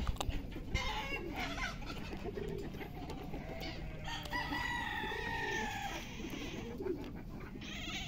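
Chickens clucking, with a rooster crowing in one long, steady call from about four to six seconds in.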